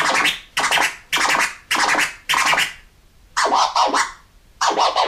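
Scribble scratches on a Rane Twelve turntable controller: a sample jerked rapidly back and forth in short, stuttering bursts. Five bursts come in quick succession, then a short pause, then two more.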